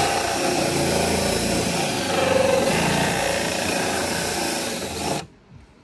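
Handheld power tool running under load, its bit grinding through a plastic body panel to cut an access hole; it stops suddenly about five seconds in.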